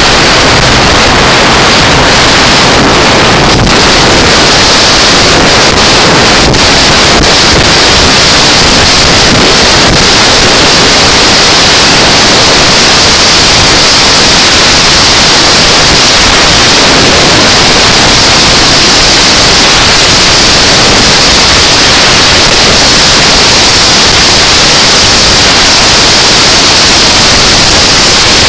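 Loud, steady wind rush on the microphone of a camera riding on a motorcycle at road speed, a constant hiss with no engine note standing out.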